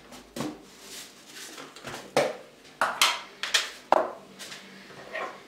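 Scattered sharp clicks and knocks of kitchen things being handled on a worktop, about half a dozen of them, as a plastic tub is picked up and its lid taken off.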